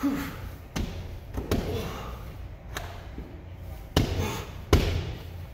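Feet thudding on a padded plyo box and a rubber gym floor during weighted step-ups: about six dull thuds at an uneven pace, the two loudest about four and four and a half seconds in, with hard breathing between them.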